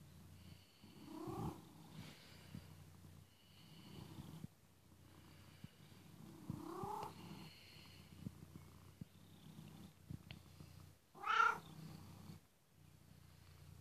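Domestic cat purring while its head is being stroked, the purr rising and falling every second or two. A few short sounds cut across it, the loudest one about eleven seconds in.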